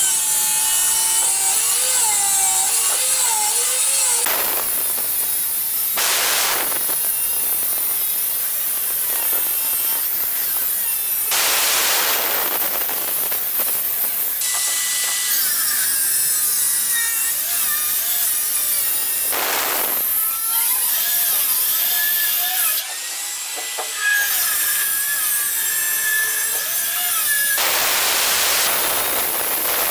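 Handheld electric marble cutter with a diamond blade cutting a wet stone slab: a steady motor whine with a grinding hiss that swells several times as the blade bites deeper. The sound dips briefly around three-quarters of the way through.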